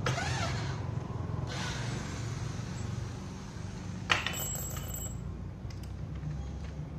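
Corded handheld electric drill briefly whirring up and then winding down as it bores into a wooden window frame. About four seconds in there is one sharp click, and a steady low hum runs underneath throughout.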